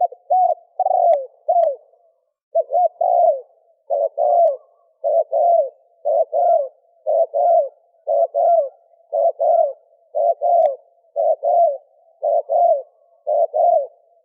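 Male spotted dove cooing: a steady run of short paired coos, about one pair a second, each note dipping in pitch at its end. This is the male's call that keepers play to draw in hens and rival males.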